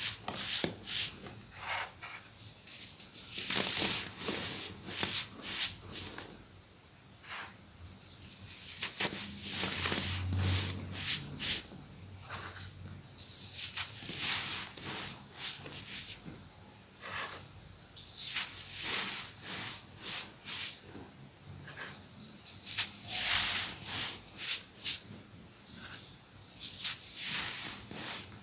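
Fresh white baking soda being crushed: soft, gritty crunches and crackles that come in irregular clusters separated by short quiet gaps.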